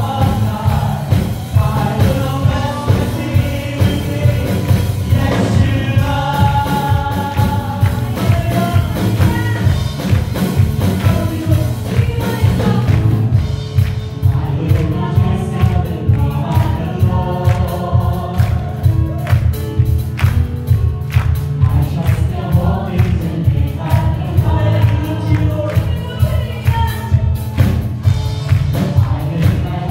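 Gospel choir singing over instrumental backing with a steady beat and heavy bass.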